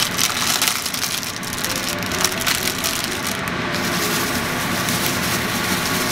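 Thin plastic egg wrappers crinkling and crackling as they are pulled open and handled, with many small crackles running on without a break.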